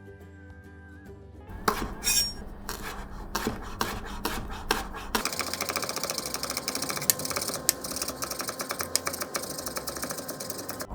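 Kitchen utensils knocking and clinking against dishes, then a quick, steady run of scraping and clicking from about five seconds in. Light background music plays at the start.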